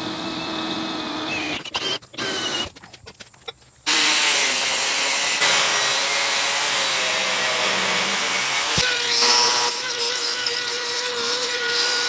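Twist drill bit boring through steel plate with a steady whine. After a couple of brief breaks, an angle grinder's cut-off wheel cuts steel bar from about four seconds in with a loud, steady grinding.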